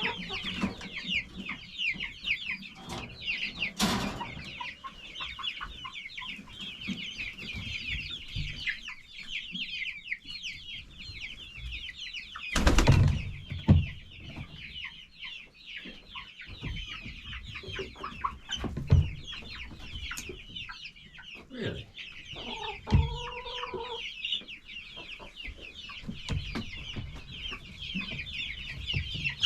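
A flock of chickens clucking and chirping continuously in many overlapping short calls. A few loud knocks break in, the longest lasting about a second around the middle, and a lower, drawn-out bird call sounds twice.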